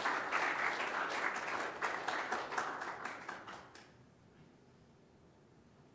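Audience applauding, many hands clapping together, fading out about four seconds in to quiet room tone.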